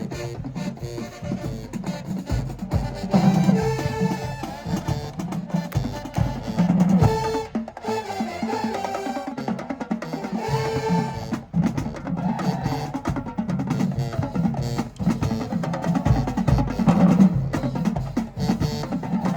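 High school marching band playing: the drumline beats a steady, dense rhythm, broken by short, loud brass phrases a few times.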